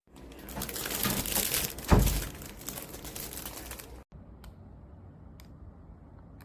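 Crinkling and rustling handling noise with one sharp thump about two seconds in. It stops at a sudden cut at about four seconds, after which only a few faint clicks remain.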